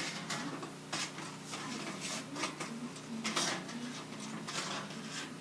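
Hand duct crimper squeezing the end of an 8-inch round sheet-metal duct, stroke after stroke, each squeeze a short crunching click of the tin, roughly two a second, as the tool is worked around the pipe.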